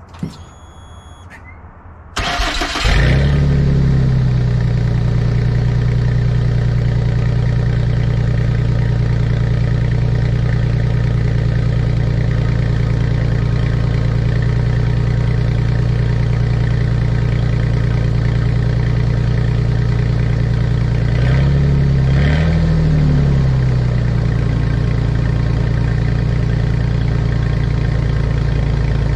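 Ford F-150's V6 engine with the exhaust removed, cranking and catching about two seconds in, then idling loud and steady. Later there is one brief rev that rises and falls before it settles back to idle.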